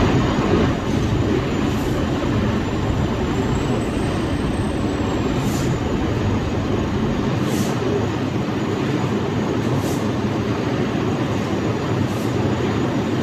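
Steady loud roar of industrial equipment, cutting in suddenly at the start and holding even throughout, with a faint high whine above it.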